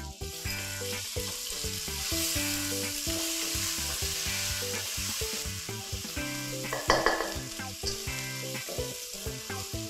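Pounded red chilies and garlic sizzling in hot oil in a wok. A spatula stirs through them, with sharper scrapes against the pan about seven seconds in. Soft background music plays underneath.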